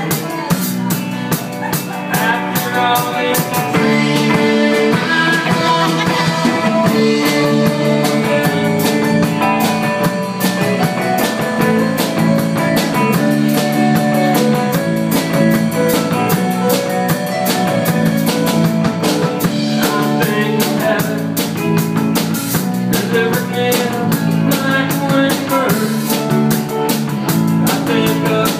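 Live rock band of electric guitar, keyboard, bass and drums playing a song, with a steady drumbeat under sustained guitar and keyboard chords.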